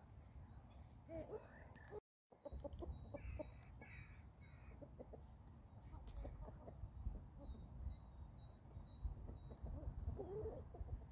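Chickens clucking softly in short low calls, with three brief higher-pitched calls about three seconds in. The sound drops out for a moment about two seconds in.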